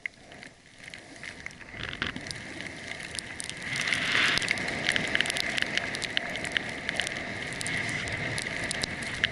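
Skis or a snowboard sliding and scraping over packed snow on a downhill run, growing louder as speed builds about four seconds in, with many small crackles on top.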